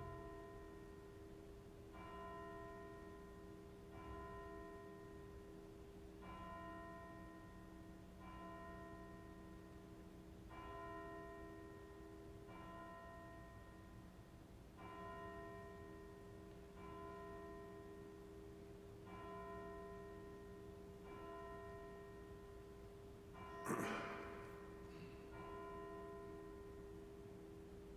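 A single church bell tolling slowly and faintly, one stroke about every two seconds, each ringing on into the next. A brief knock sounds near the end.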